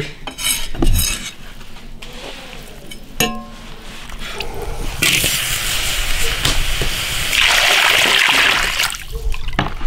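Water poured in a stream into a wok holding sliced beef tripe, a steady splashing pour that starts about halfway through, grows louder and stops shortly before the end, to blanch the tripe. A few light knocks and clinks come before it.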